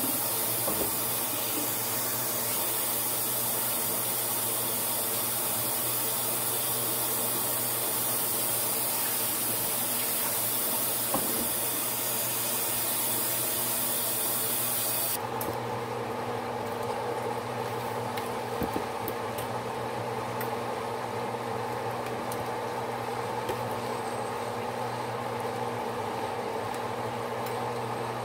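Steady hiss of a pan of yellow rice simmering on the stove, over a low steady hum. About halfway through the high part of the hiss drops away abruptly.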